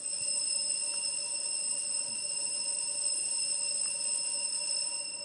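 Altar bell ringing steadily, a bright metallic ring of several high tones that starts suddenly and dies away after about five seconds; it marks the elevation of the chalice at the consecration of the Mass.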